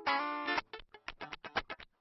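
Background music: guitar chords struck in a choppy rhythm, a long chord at the start and short stabs after it.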